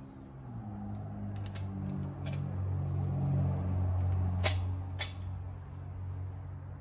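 Two sharp metallic clicks about half a second apart, with a few fainter ticks before them, as a hand works the wick adjuster of a kerosene hurricane lantern. A low hum runs underneath.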